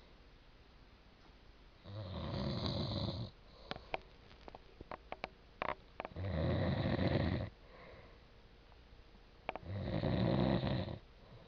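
A man snoring heavily in his sleep: three long, growling snores about four seconds apart, each lasting about a second and a half.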